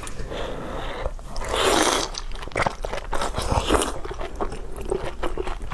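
A person eating food from a bowl of broth: a loud slurp about a second and a half in, then chewing with many small crunchy, wet clicks.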